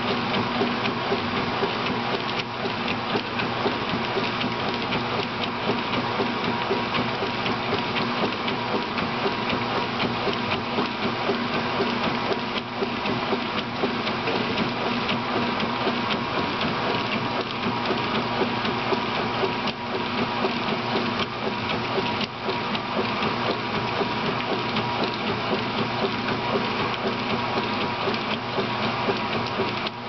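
Kenmore 800 top-load washing machine agitating in its wash cycle, lid open: the motor and transmission run steadily with a constant hum while the agitator churns clothes through the wash water.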